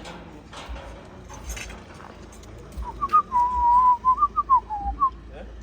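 A person whistling a short tune of several notes. It starts about three seconds in, with one longer held note in the middle and a falling note at the end.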